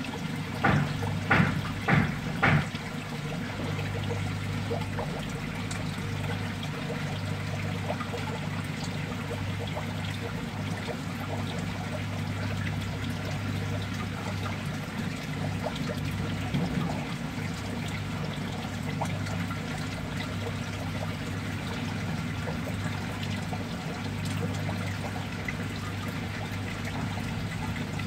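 Water trickling and pouring steadily in a crab fattening tank's recirculating system, over a constant low hum. Four brief louder sounds stand out in the first three seconds.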